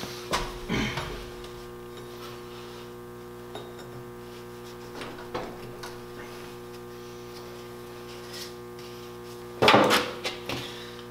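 Hand work in a golf cart's engine bay: scattered light clicks and knocks of tools and metal parts being handled, with the loudest cluster of knocks near the end. A steady electrical hum runs underneath.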